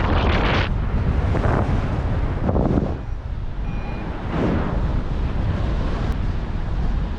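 Wind buffeting the microphone in flight under an Advance PI 3 paraglider: a steady low rumble of rushing air that swells in short gusts a few times.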